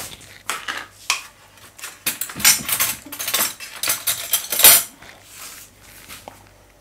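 Kitchen clatter: a run of clicks, knocks and short scrapes as a plastic margarine tub and utensils are picked up and handled by the stove, loudest about two and a half and four and a half seconds in, then it dies down.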